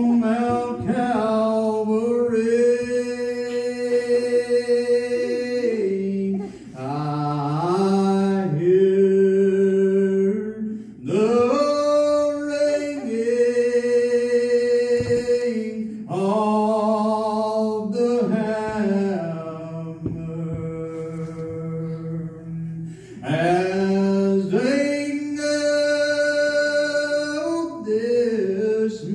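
A solo male voice singing a cappella, without accompaniment. He holds long, steady notes in phrases of several seconds, with short breaks between phrases.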